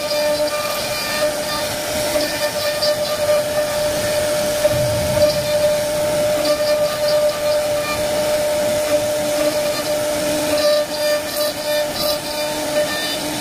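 CNC wood carving router running while it cuts wood, giving a steady high whine over a continuous cutting hiss, with some overtones swelling and fading as the cut changes.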